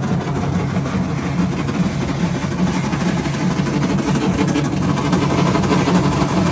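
Homemade clothes dryer running with a Chinese diesel air heater as its heat source: a steady, loud mechanical hum from the heater and drum motors.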